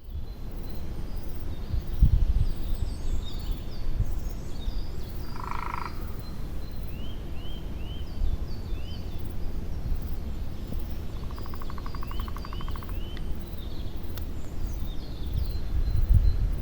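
Outdoor natural ambience: high chirping calls repeated throughout, and two short buzzing trills, one about five seconds in and one about eleven seconds in. Under them runs a steady low rumble, with a dull thump about two seconds in and another near the end.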